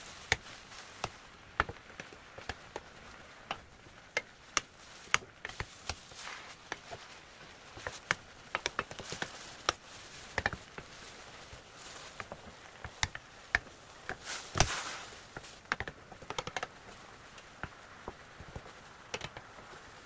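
Wooden spatula tapping and scraping against a nonstick frying pan while stir-frying greens: irregular clicks and knocks, with one longer, louder scrape about three-quarters of the way in.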